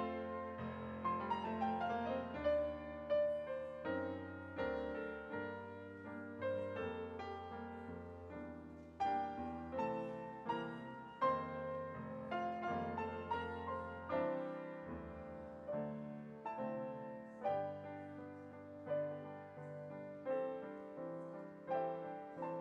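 Piano music: a slow, gentle piece of struck notes that ring and fade, over held lower notes.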